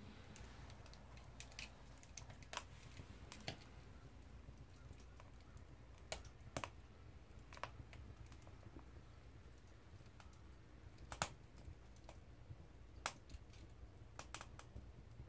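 Wood fire crackling faintly inside a mini stainless-steel camping wood stove: sparse, irregular sharp pops and snaps over a low steady rumble, the loudest pop about eleven seconds in.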